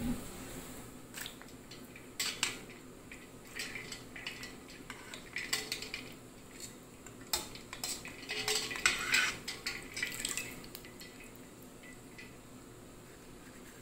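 Metal kitchen tongs clinking against a stainless-steel bowl of ice water, with light splashing as blanched cabbage leaves are lifted out. The clinks are scattered and irregular over about ten seconds and die away near the end.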